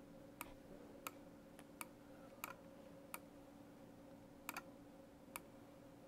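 Sparse, sharp clicks of a computer mouse, about one every two-thirds of a second with a quick double click about halfway through, over a faint steady hum.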